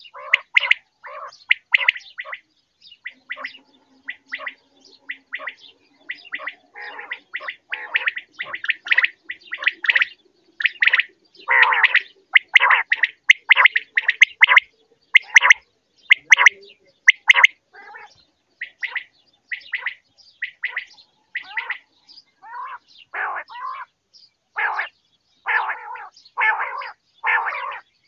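Common quail calling over and over: short notes repeating at about two to three a second in uneven runs, with brief pauses between runs.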